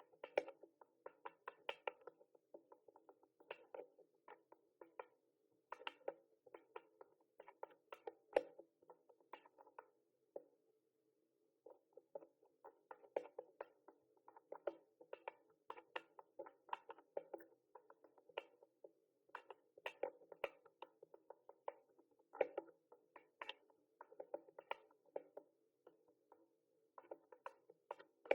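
Typing on a mechanical keyboard: quick runs of key clicks in bursts, with a short pause about a third of the way through.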